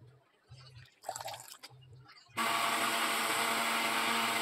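Electric blender motor running steadily, beating eggs, switched on abruptly about two and a half seconds in.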